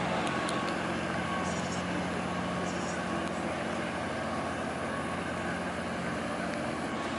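Steady low drone of the fishing vessel Northwestern's diesel engine as the boat moves slowly through the lock, with no change in pitch or level.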